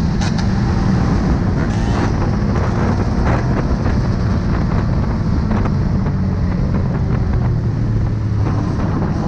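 Dirt bike engines running steadily on the street, with wind noise on the microphone.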